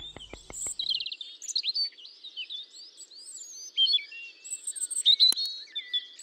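Small songbirds chirping and trilling, many short overlapping calls. A rapid rattle fades out in the first second, and a single sharp click sounds about five seconds in.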